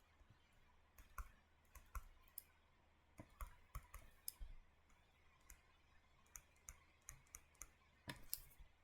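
Faint, irregular clicks and taps of a pen tip on a hard writing surface as structures are written and drawn, busiest around the middle, with a sharper tap near the end.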